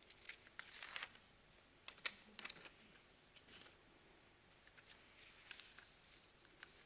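Near silence: room tone with faint scattered clicks and rustles, a small cluster of them about one to two and a half seconds in.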